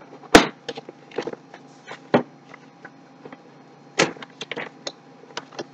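A cardboard graphics-card box being handled and opened: scattered clicks, taps and rustles, with a sharp knock just after the start and louder taps about two and four seconds in.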